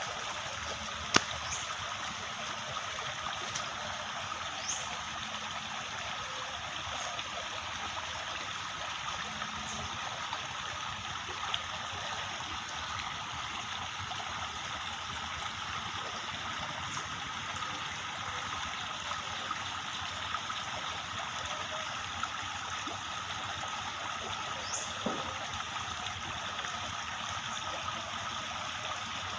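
Running water trickling steadily, with a sharp click about a second in and a few faint, short, high rising chirps.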